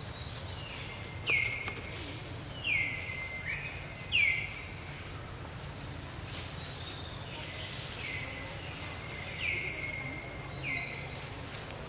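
A bird calling repeatedly, each call a short note that slides downward and levels off. The calls come about every one to two seconds, over a steady low background noise.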